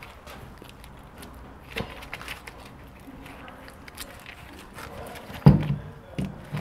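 Small clicks and taps of an EGR valve being reassembled by hand, its cover and metal housing handled and fitted together, with a heavier knock about five and a half seconds in.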